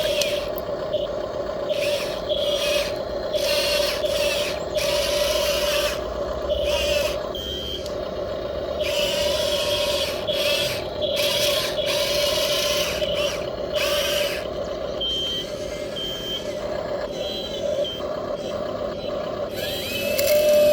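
Small electric motors of radio-controlled model machinery whining steadily, with irregular short scraping and rustling bursts over the top.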